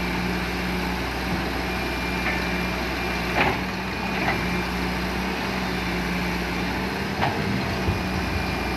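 Heavy diesel engine of construction machinery running steadily, with three short knocks in the middle and near the end.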